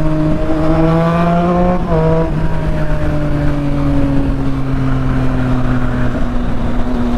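Triumph Street Triple 675's three-cylinder engine on a full exhaust, accelerating. The pitch rises, drops sharply at a gear change about two seconds in, climbs again briefly, then falls slowly as the throttle eases off.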